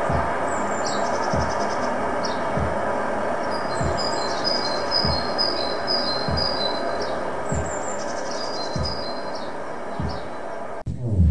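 Live dark ambient noise music: a dense rushing noise texture with a low pulse about every 1.2 seconds and bird-like chirps high above it. The texture cuts off abruptly near the end, where a deeper falling bass thud begins.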